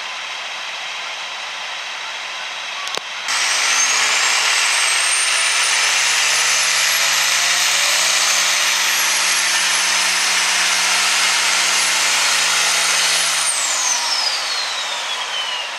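Oliver farm tractor's diesel engine pulling a weight-transfer sled at full throttle. It jumps to full power about three seconds in, with a high whistle climbing slowly in pitch through the pull. Near the end the engine backs off and the whistle falls away.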